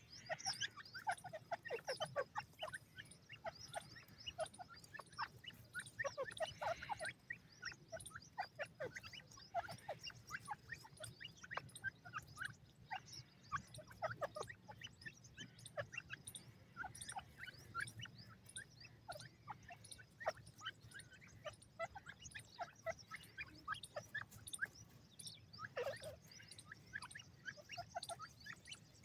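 Young grey francolins giving many short, high-pitched chirps in quick, irregular succession while foraging, over a faint low background hum.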